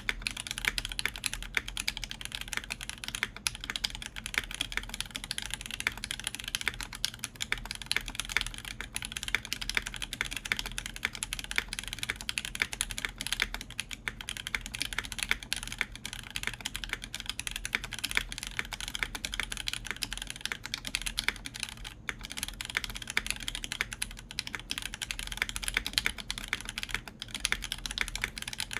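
Steady, fast typing on a Tech Bear TB-65F custom mechanical keyboard, bottom-mounted, with a full copper plate, lubed JWK Alpaca linear switches and GMK Cosmos keycaps. Keystrokes follow one another in a dense, continuous stream of clicks over a faint low desk rumble.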